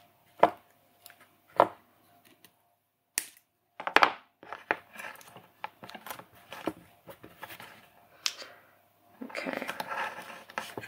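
Flush cutters snipping electronic header pins short: two sharp snips about half a second and a second and a half in. Then small clicks and rustling as the circuit board and its pin header are handled.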